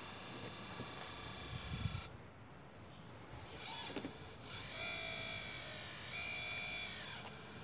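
Kabolite radio-controlled hydraulic model excavator running, its electric pump whining steadily as the boom and arm move, with held tones that change pitch and cut in and out as the controls are worked.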